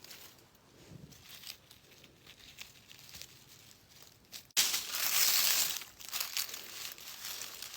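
Rustling and crinkling of dry leaves and undergrowth being pushed through and handled: faint scattered crackles at first, then a sudden louder burst of rustling about halfway through lasting a second or two, easing back to lighter rustling.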